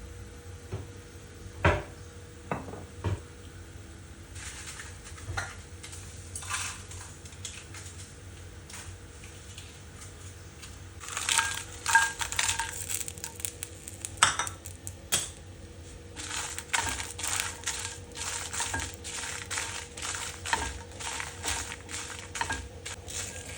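Food being prepared in a bowl or dish: a few sharp knocks, then scraping and clattering strokes, and near the end a run of repeated strokes about twice a second, over a faint steady hum.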